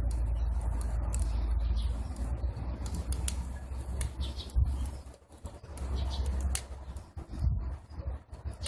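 Wood and paper fire burning in a small metal rocket stove, giving occasional sharp crackles over a steady low rumble that dips a few times.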